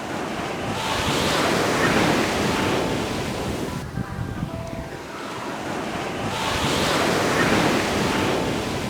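Ocean surf washing onto a beach: two waves swell in and fade away, about five and a half seconds apart.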